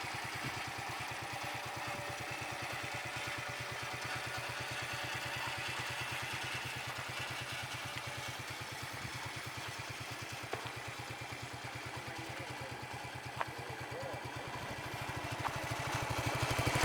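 Yamaha Crux's single-cylinder four-stroke engine idling with a quick, even beat, growing louder over the last two seconds.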